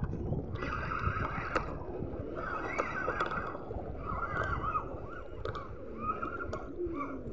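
Spinning reel being cranked against a hooked fish, a small giant trevally, whirring in stretches of about a second with short breaks. A low rushing noise runs underneath.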